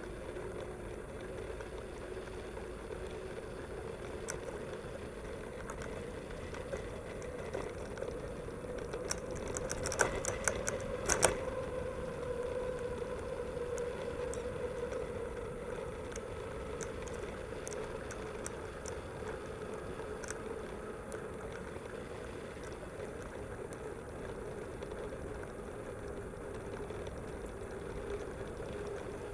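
Mountain bike riding along park paths, heard through a bike-mounted camera: a steady rolling noise with a low hum, and a cluster of sharp rattling clicks about ten seconds in.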